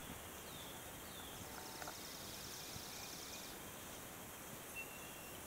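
Faint outdoor ambience with birds calling: two short falling chirps near the start, then a high rapid trill lasting about two seconds.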